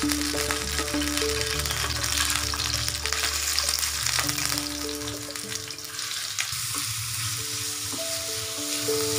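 Marinated chicken pieces sizzling as they fry in hot oil in a nonstick pan, stirred with a wooden spatula, with background music playing.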